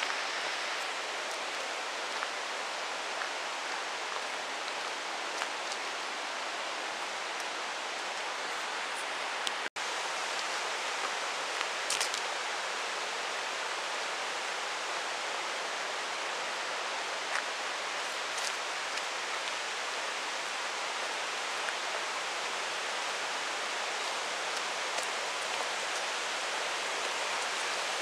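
Steady rushing of a mountain stream running over rocks, an even noise with a few faint ticks. It cuts out for an instant about ten seconds in.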